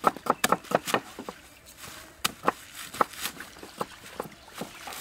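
Cleaver chopping a bunch of green onions on a thick wooden chopping block: a quick run of chops in the first second or so, then single chops about every half second.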